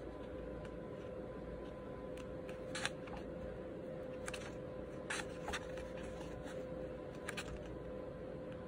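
A black pen and the drawing paper being handled while doodling: a few scattered light clicks and taps, about six, over a steady electrical hum.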